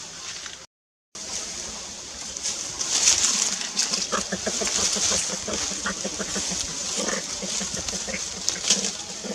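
Macaques giving a run of short, low calls over a steady high hiss of forest background. The sound cuts out completely for a moment about a second in.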